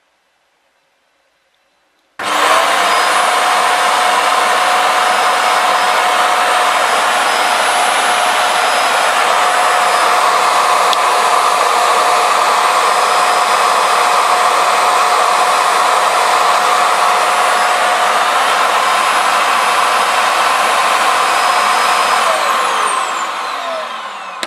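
Ecovacs Deebot T9+ auto-empty station's suction motor emptying the robot's dustbin into the station's dust bag. It starts abruptly about two seconds in, runs steadily with a whine over the rushing air, as loud as an ordinary vacuum cleaner, and spins down with a falling pitch near the end.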